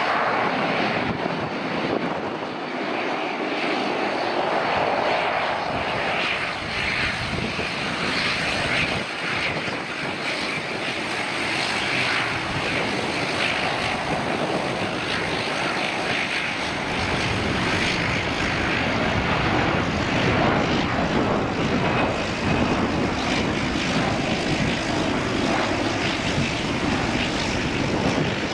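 Airbus A330-243's twin Rolls-Royce Trent 700 turbofans at takeoff power during the takeoff roll: a loud, steady jet roar.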